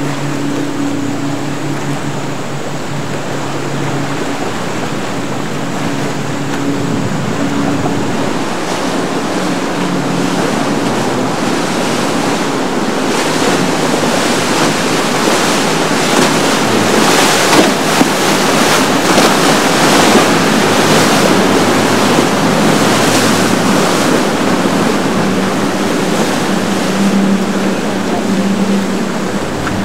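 Motorboat engine running through rough inlet waves: a steady low engine hum under a loud wash of surf and spray that swells through the middle and eases off again.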